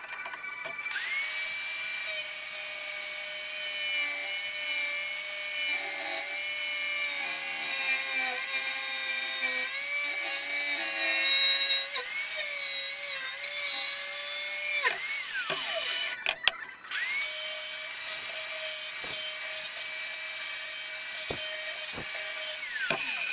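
Angle grinder with a cut-off disc cutting through a steel threaded rod held in a vise: a steady high whine over the hiss of the cut. It winds down about fifteen seconds in, starts again about two seconds later for another cut, and winds down again near the end.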